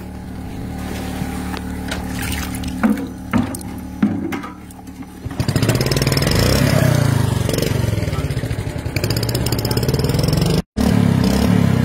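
A motor engine running steadily, with a few sharp knocks about three to four seconds in; from about five and a half seconds in it gets louder and its pitch wavers up and down.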